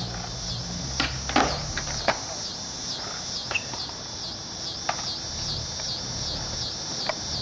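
Skateboard clicks and clacks on asphalt, heard as scattered sharp knocks over a steady high buzz that pulses a few times a second.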